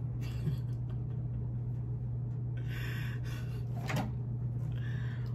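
Handling noise as a Glock 30 pistol is taken out of its packaging: a light knock about half a second in, a short rustle, a sharper knock about four seconds in and another brief rustle near the end, over a steady low hum.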